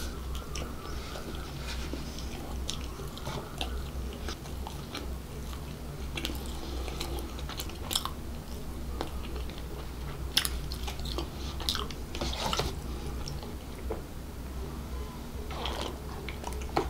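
Close-miked chewing and mouth sounds, with scattered small crackles and wet clicks, over a steady low hum. Near the end, a short sip through the straw of a drink carton.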